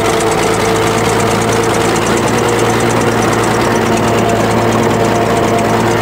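An old bulldozer's engine running steadily at an even speed, heard close up from the operator's seat.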